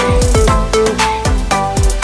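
Background music: an electronic track with a deep kick drum falling in pitch about twice a second under a repeating melody.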